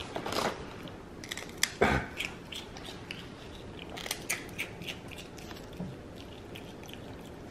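Black-capped capuchin monkey biting and chewing a crisp popped chip: scattered short crunches and crackles in clusters, the loudest about two seconds in. The plastic snack bag rustles near the start as a paw reaches into it.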